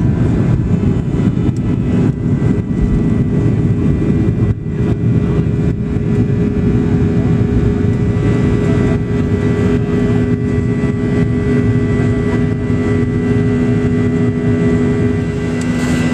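Airliner taking off, heard inside the cabin: loud, steady engine noise over a low rumble from the wheels on the runway, with a few bumps in the first seconds and a steady hum underneath.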